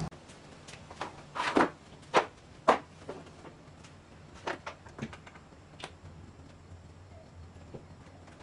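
Wooden boards knocking and clattering as they are handled on a miter saw and its stand: a handful of sharp knocks, the loudest in the first three seconds and a few smaller ones later.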